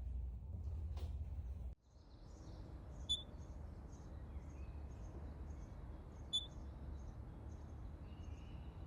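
A short, sharp, high-pitched beep-like chirp repeating about every three seconds, the call of a squirrel, with fainter quick chirps in between. A low rumble drops away abruptly about two seconds in.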